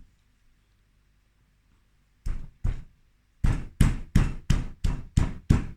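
A small hand stone pounding garlic on a flat flint grinding stone, stone knocking on stone. After about two seconds of quiet come two knocks, then a steady run of knocks at about three a second.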